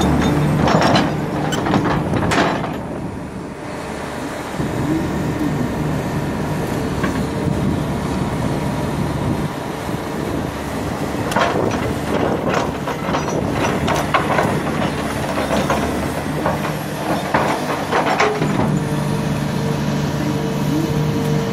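Komatsu PC400 hydraulic excavator's six-cylinder diesel engine running steadily under load as it digs and swings. Bursts of clatter come near the start and again from about eleven seconds in, as soil and rocks drop from the bucket into a dump truck's steel bed.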